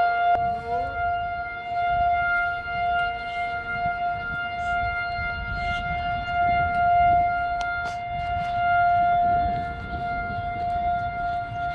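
Outdoor tornado warning siren sounding a steady, unchanging tone during a scheduled test.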